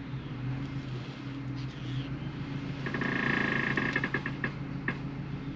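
Isuzu NPS diesel truck running slowly with a steady low hum, towing an off-road caravan over a dirt track. About three seconds in, a rasping, rapidly pulsing sound lasts for about a second and a half, followed by a few clicks.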